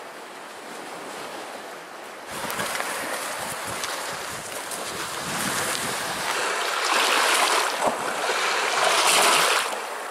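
Small waves on Lake Superior washing onto a stony shore, mixed with wind on the microphone. The sound steps up suddenly about two seconds in, and the wash swells louder around seven and again around nine seconds in.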